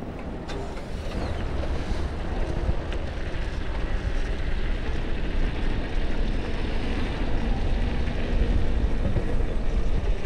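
Wind buffeting the GoPro's microphone on a moving e-bike: a steady, low rushing rumble that grows louder over the first couple of seconds as the bike picks up speed.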